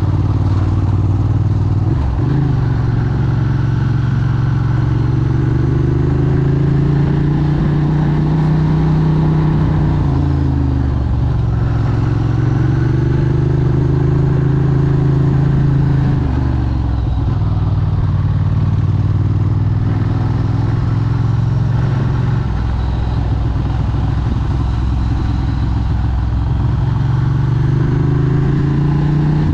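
Moped engine running under way, its pitch climbing and dropping slowly several times as it speeds up and eases off.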